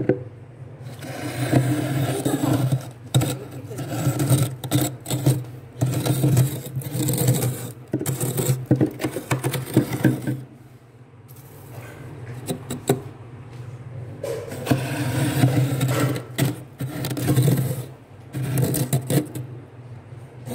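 Glass cup scraped along thick, soft freezer frost, a crunchy scraping that packs the frost into the cup. It comes in long passes with short pauses about ten and eighteen seconds in.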